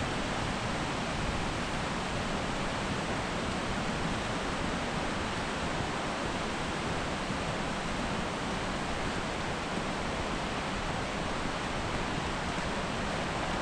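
Steady rushing of flowing water, an unbroken even hiss without surges.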